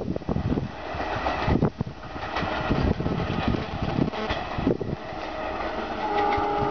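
Passenger train's rear coaches pulling away, wheels clattering irregularly over the track, with the low rumble of the ALCO WDM2 diesel locomotive accelerating at the head of the train. A short steady tone sounds near the end.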